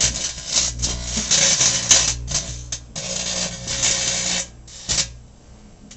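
Steel mesh lint trap arcing inside a running microwave oven: irregular loud crackling and buzzing sparks over the oven's steady hum, dying down for the last second or so.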